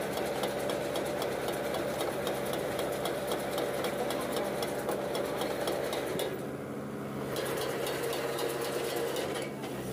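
Mahindra 475 tractor engine running steadily while it drives a Redlands mini round baler, with a fast, regular mechanical ticking from the baler's moving parts. The ticking thins out and the sound drops a little just past the middle, then picks up again.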